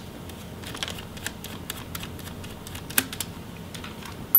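Small Phillips screwdriver backing out a cooling-fan screw in a laptop: faint scattered clicks and ticks of the bit and the screw. Near the end comes one sharp, ringing clink of small metal.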